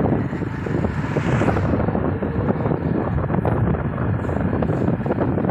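Steady road and engine noise from a moving vehicle, heaviest in the low end.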